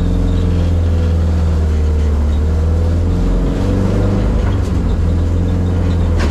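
Turbocharged Mk1 Ford Fiesta's four-cylinder engine running steadily while driving, a low drone through its newly made full exhaust system, shifting slightly in pitch about halfway through.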